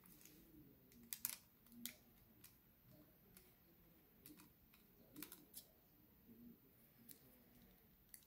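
Faint, scattered small clicks and ticks of a screwdriver working the screws of a laptop hard drive's mounting bracket, a few sharper clicks a little after one second in, near two seconds and around five seconds.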